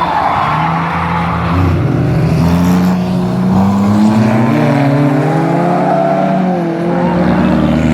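Rally car engine running hard, its pitch climbing for a couple of seconds and then rising and falling with the throttle. A hiss of tyre noise comes in the first second.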